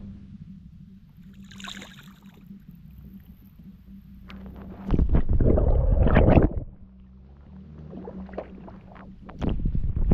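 Water sloshing and splashing as caught fish are released back into the canal. There are two louder spells of splashing, about five seconds in and again near the end.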